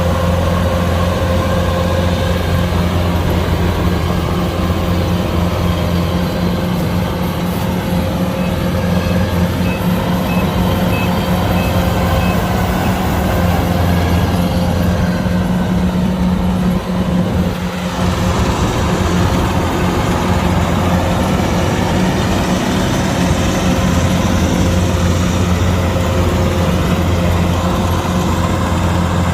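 Kubota DC-105X combine harvester's diesel engine running steadily under working load. A short run of about seven faint, high electronic beeps sounds about a third of the way in.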